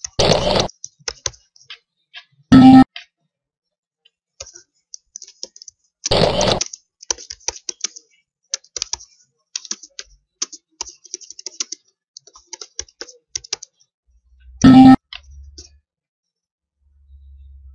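Computer keyboard typing in runs of quick key clicks, with two louder clattering bursts near the start and about six seconds in. Twice, about two and a half seconds in and near the end, a short loud pitched tone sounds over the typing.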